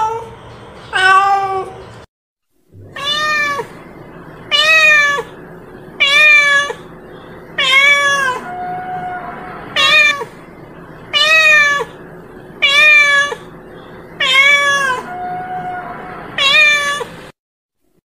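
A cat meowing over and over, about one meow every second and a half, each rising then falling in pitch. A couple of softer, lower, flat-pitched meows come in between, and the sound drops out briefly about two seconds in.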